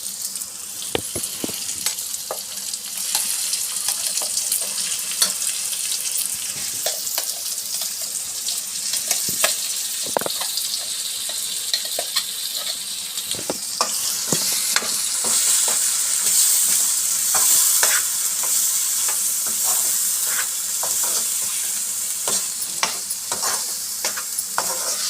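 Masala paste frying in oil in a kadai, sizzling steadily while it is stirred, with frequent sharp clicks and scrapes of the spoon against the pan. The sizzle grows louder about halfway through.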